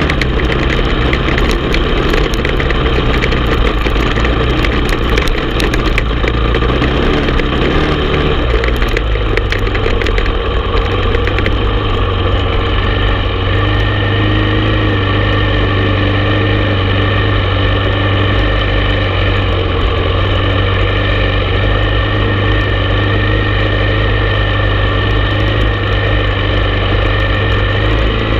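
Honda TRX450 ATV's single-cylinder four-stroke engine running while riding a rocky trail; the engine note drops about eight seconds in and then holds steady.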